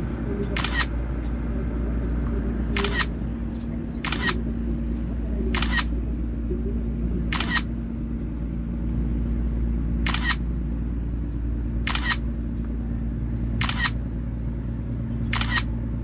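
Camera shutter sound of the DJI Fly app firing nine times, about every two seconds, as the DJI Mini 4 Pro shoots the photos of a panorama sequence.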